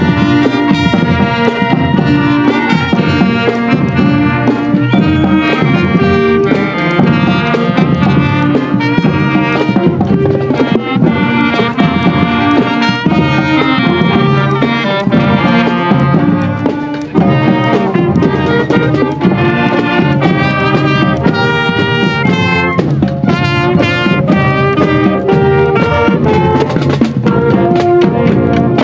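Marching band playing a tune: brass and woodwinds carrying the melody over a steady drumline beat.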